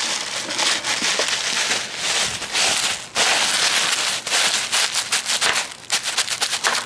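Plastic bubble wrap crinkling and rustling as it is handled and pressed against a car tyre, with rapid crackles that turn choppier in the second half.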